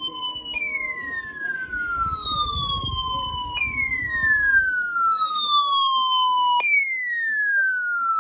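Weather alert radio sounding its alarm for an incoming marine warning: a loud siren-like tone that falls in pitch over about three seconds, then jumps back up and falls again, three times. A fainter steady tone runs under the first half.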